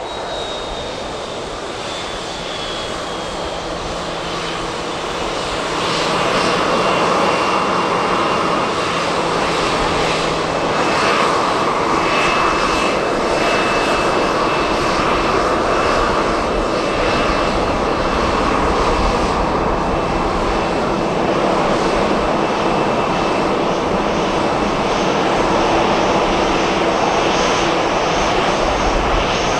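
Boeing C-40C's twin CFM56-7 turbofan jet engines running at taxi power: a steady jet rush with a thin high whine running through it, growing louder about six seconds in.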